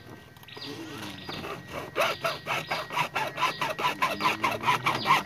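A hacksaw cutting through a Yamaha New Vixion's plastic rear fender in quick back-and-forth strokes, about four a second. The strokes start soft about a second in and grow louder and more even.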